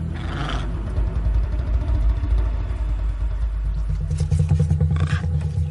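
Tense soundtrack music built on a low, steady rumbling drone, with a few short, sharp sounds above it near the start and again about four seconds in.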